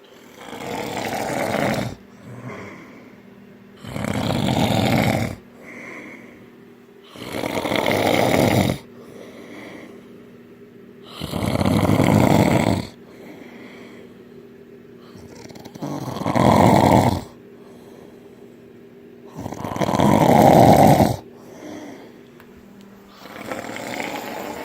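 A person in deep sleep snoring loudly, one long rasping snore about every four seconds, seven in all, the last one weaker.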